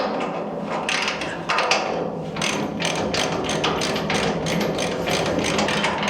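Hand ratchet wrench clicking in quick, repeated strokes as a bolt is tightened.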